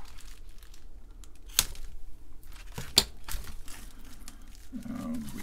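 Bubble-wrap packaging crinkling and rustling as it is snipped with scissors and pulled open around a circuit board, with two sharp clicks about a second and a half and three seconds in.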